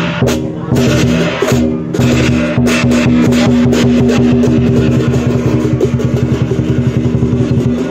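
Lion dance percussion: a drum with crashing cymbals and a ringing gong, settling into a fast, steady drum beat through the second half.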